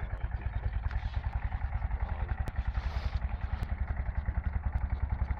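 A small engine running steadily with a fast, even low chugging beat. Brief splashing of water and mud about halfway through.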